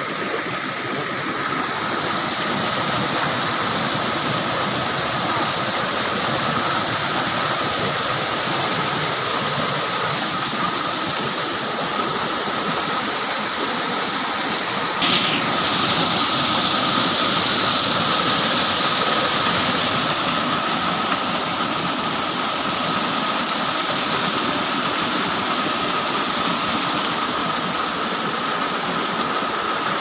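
Waterfall and rocky stream rushing: a loud, steady wash of falling and tumbling water.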